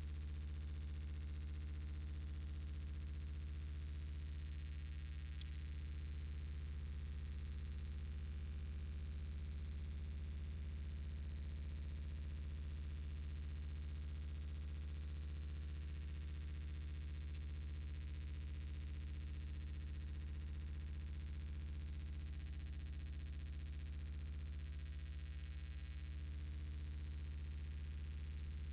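Steady low electrical hum with a few faint, short clicks spread through it.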